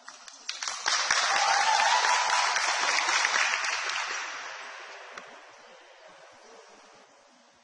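A seated group applauding, with clapping and some cheering. It swells about a second in and dies away over the next few seconds.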